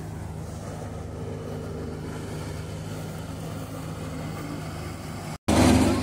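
Nazar combine harvester's diesel engine and threshing machinery running at a steady working speed, a constant low hum. Near the end the sound breaks off for an instant and comes back louder.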